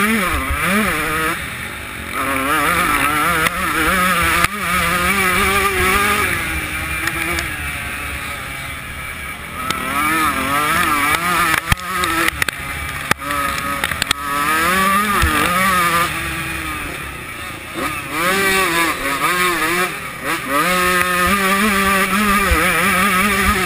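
125cc two-stroke motocross bike engine revving hard, its pitch climbing and dropping again and again as it is run through the gears and backed off for turns. A few sharp knocks cut through it.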